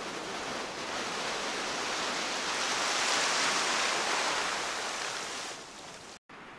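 Shallow wave wash rushing in over flat sand. It swells to a peak about three seconds in, then fades. Near the end the sound cuts out for a moment, and a softer steady hiss follows.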